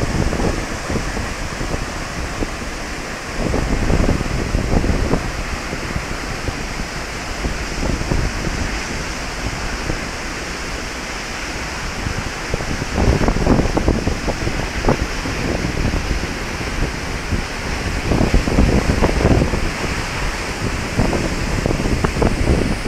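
Athirappilly Falls' heavy cascade making a steady rushing roar, with gusts of wind buffeting the microphone several times.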